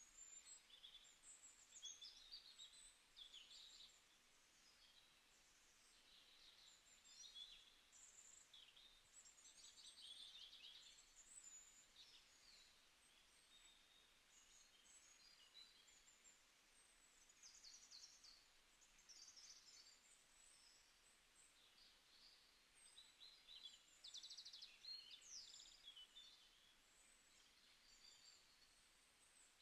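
Faint birdsong: several small birds chirping and trilling in quick, high-pitched phrases, over a soft background hiss.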